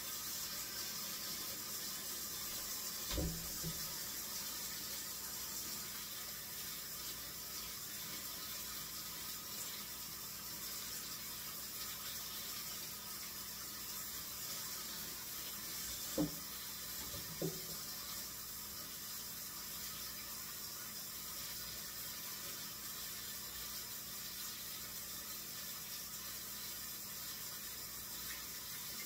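Kitchen tap running steadily into a sink as raw chicken legs are rinsed under it, with a few short knocks: one about three seconds in and two more about a second apart past the halfway point.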